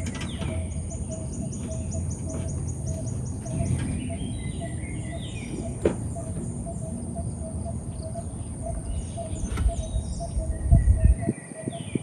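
Birds chirping and trilling in a pine forest over a steady high-pitched buzz and a low outdoor rumble, with a short pulsing note repeating several times a second. A sharp knock about halfway through and a few thuds near the end.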